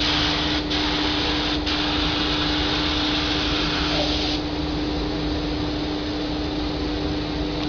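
Compressed-air paint spray gun hissing as its trigger is held, with two short breaks, then shutting off about four seconds in. A steady machine hum runs underneath throughout.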